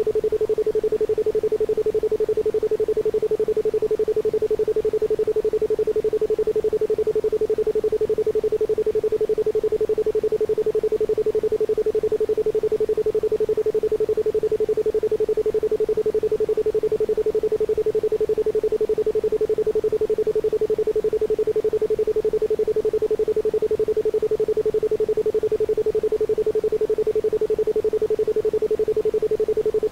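Isochronic tone: a steady 432 Hz pure tone pulsed on and off in rapid, even beats, with no other sound.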